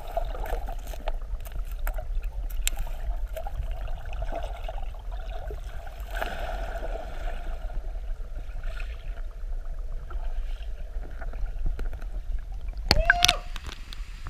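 Muffled underwater sound of a river pool, heard through a waterproof camera housing: a low steady rumble of moving water with scattered clicks and bubbling as a swimmer moves nearby. Near the end comes a louder splash as the camera breaks the surface.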